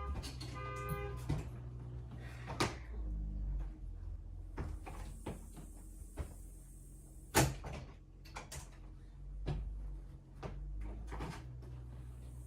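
A pulsing electronic tone that stops about a second in, then scattered knocks and bumps over a low hum, one louder knock past the middle.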